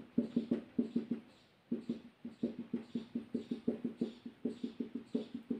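Marker tip tapping dots onto a whiteboard in quick runs, about five or six taps a second, each tap a short knock. There is a brief pause about a second and a half in.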